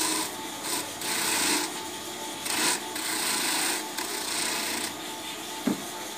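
Small electric corn grater running, its spinning drum rasping as fresh corn cobs are pushed back and forth against it, grating the kernels into pulp for pamonha, in repeated strokes about a second long. A short knock near the end.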